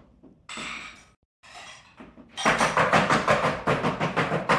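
Toddler walking in adult high-heeled sandals on a hardwood floor, the heels clacking and scraping. There are a few separate clacks at first, then a dense, fast clatter from about halfway through.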